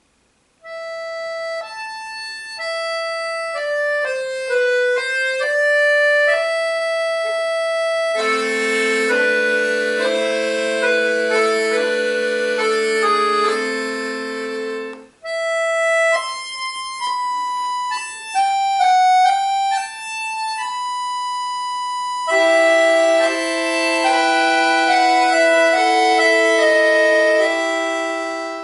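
Solo accordion playing: a melody of held single notes, then full chords with a low accompaniment underneath, a brief break about halfway, then melody and chords again.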